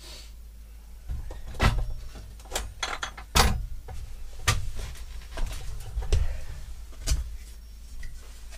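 Irregular knocks and clunks, about eight in all, some with a dull thud beneath, the loudest about three and a half seconds in.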